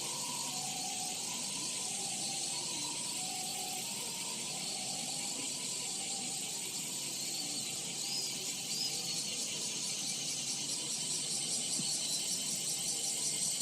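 Chorus of cicadas, a dense high-pitched buzzing that pulses more strongly in the second half. A Japanese ambulance's two-tone 'pee-po' siren alternates faintly under it and fades away about halfway through.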